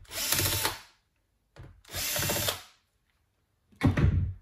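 Bosch cordless drill/driver run in two short bursts of about a second each, driving screws out of the laptop's fan area. A short knock follows near the end.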